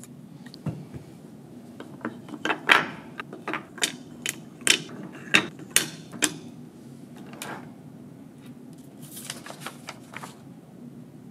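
Wooden toy train pieces clacking together as blocks are fitted onto wooden pegs and the carriages are set in line: a string of sharp wooden clicks and knocks, a pause, then a quick rattle of clicks near the end.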